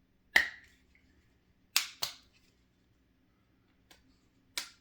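Hard plastic toy playset pieces snapping and clicking into place: five short sharp clicks, the first and a close pair about two seconds in the loudest, a fainter one near the end.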